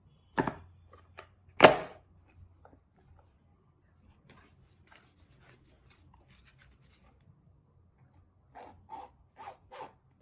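Objects being handled in a small room: two sharp knocks in the first two seconds, faint scattered clicks, then four quicker, lighter taps near the end.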